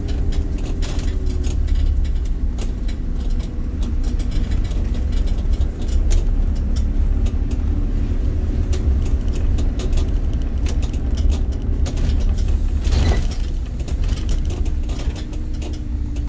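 City bus driving, heard from inside: a steady low engine and road rumble whose pitch drifts up and down, with frequent clicks and rattles from the body. A short hiss comes about thirteen seconds in.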